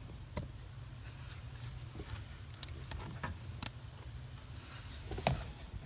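Scattered light clicks and taps of a plastic folding cup holder being handled and positioned, over a low steady hum. The loudest click comes near the end.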